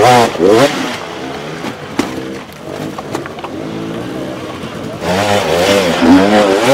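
Enduro dirt bike engines revving hard, their pitch rising and falling quickly with the throttle as the riders fight up a steep, rocky climb. The revving eases to a lower, steadier running for a few seconds in the middle, then goes loud again near the end.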